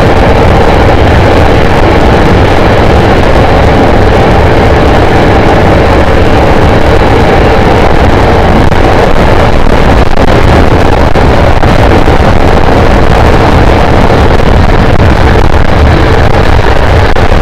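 Intercity Direct train running at speed on the high-speed line, heard from inside the train as a loud steady rumble and rush.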